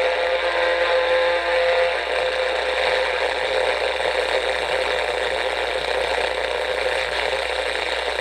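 Grundig FR-200 world band radio on the AM band, its speaker putting out a steady hiss of static with a constant tone and no clear station. The owner takes this for interference, probably from the basement lights.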